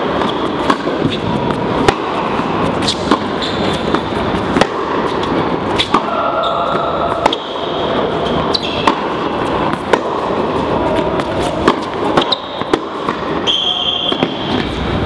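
Tennis rally in an indoor hall. Racket-on-ball strikes and ball bounces crack out at irregular intervals of roughly one to one and a half seconds, over a steady hall noise.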